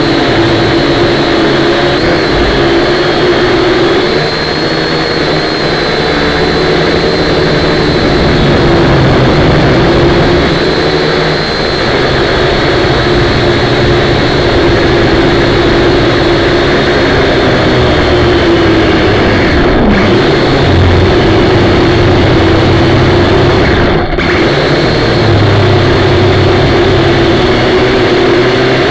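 Quadcopter drone's electric motors and propellers buzzing steadily in flight, as picked up by the onboard camera, the pitch wavering up and down as the throttle changes. The high end drops out briefly twice in the last third.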